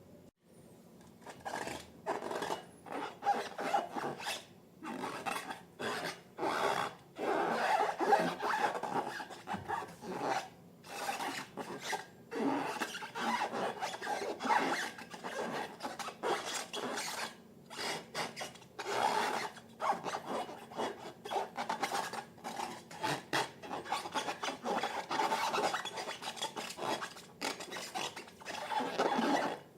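Slime being stirred and scraped, a long run of irregular rubbing, scraping strokes.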